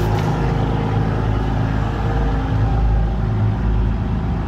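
Sea Ray motor yacht's engines running with a steady low drone and no change in speed.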